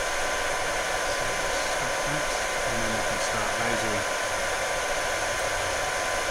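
Genmitsu Z5-1 fiber laser running close to the microphone, its cooling fan giving a steady, loud rushing noise with a few faint steady tones.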